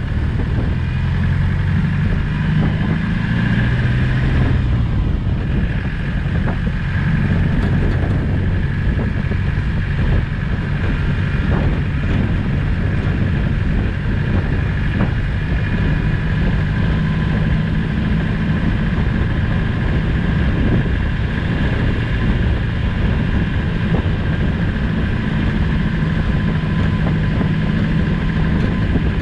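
Land Rover Discovery's 200Tdi four-cylinder turbodiesel engine running steadily while the vehicle is driven off-road, with a steady high whine and occasional knocks and bumps.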